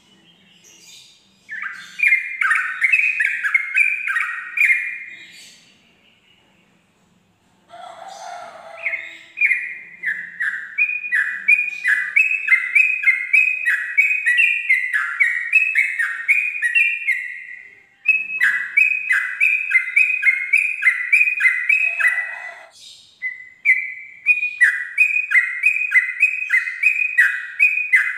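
Yellow-vented bulbul (trucukan) singing its rapid 'ropel' song: long runs of quick, evenly repeated descending whistled notes, broken by a few short pauses.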